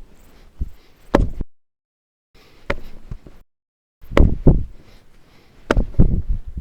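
Irregular knocks and thuds of very sticky brioche dough being worked by hand on a work table, coming several in quick succession near the end. The sound cuts out completely twice in between.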